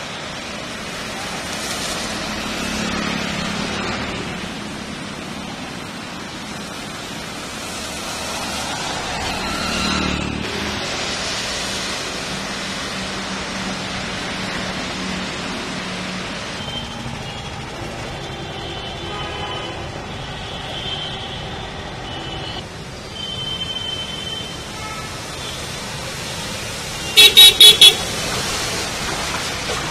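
Traffic on a rain-soaked road: motorbikes and cars passing over wet tarmac, with scattered horn toots. Near the end comes a burst of four quick, loud horn blasts.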